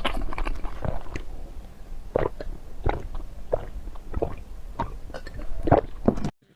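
Close-miked chewing of soft cake: wet, squishy mouth sounds and smacks at irregular intervals, stopping abruptly near the end.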